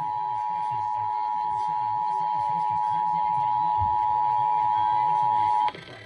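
Emergency Alert System attention signal: two steady tones sounding together, cutting off abruptly near the end. It marks the start of an alert, just before the spoken message.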